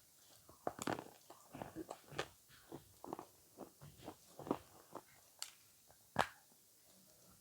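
Close-miked chewing of avocado: irregular short clicks and mouth smacks, with one sharper click about six seconds in before a quieter stretch.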